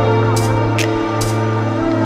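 Electronic background music: sustained bass notes under steady synth tones, with cymbal-like hits every half second or so.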